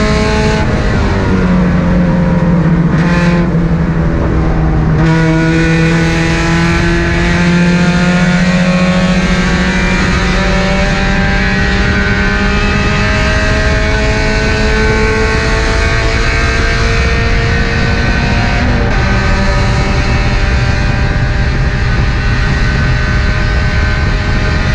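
Car engine pulling hard around a race track. Its note climbs slowly and drops sharply three times: about a second in, around five seconds, and near nineteen seconds. Heavy wind and road noise run under it.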